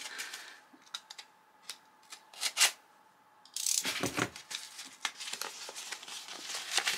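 Kraft paper packing wrap being handled: a few sharp clicks in the first half, the loudest about two and a half seconds in, then from about halfway the paper is slit with a utility knife and torn and crinkled open in a continuous rustle.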